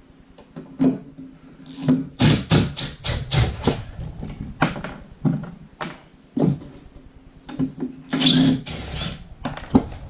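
Plumbing fittings under a bathroom sink being worked loose by hand and with tools: a run of sharp clicks and clanks about two seconds in, scattered knocks, and a dense cluster near the end, over a faint steady low hum.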